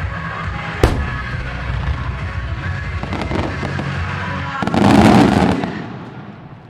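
Fireworks exploding over music played on loudspeakers. A single sharp bang comes about a second in. Near the end the music stops and a loud burst of fireworks goes off, then fades away.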